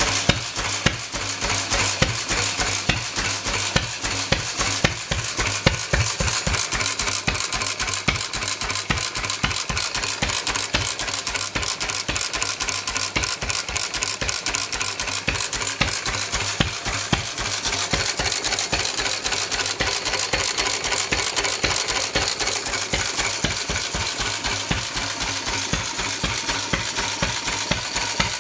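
A 4 hp Sundial stationary engine running steadily, its flywheels turning, with a rapid, even metallic clicking over a low engine hum.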